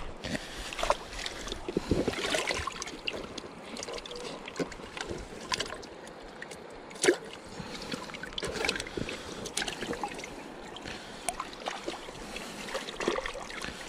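Shallow river water splashing and sloshing as a caught fish is handled into a keeper bucket standing in the water, with scattered knocks and clicks throughout and one sharp knock about seven seconds in.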